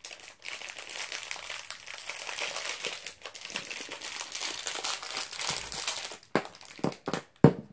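Plastic packaging bag crinkling as it is handled and opened, with a few sharp clicks near the end.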